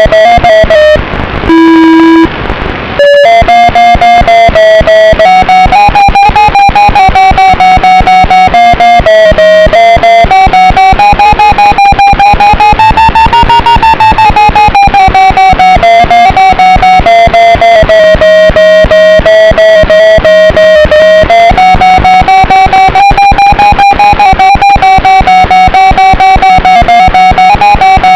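Background music: distorted electric guitar over a fast, steady beat, with a short break about a second in.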